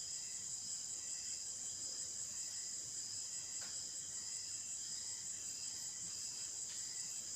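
Steady, faint, high-pitched chirring of crickets in the background, unchanging throughout.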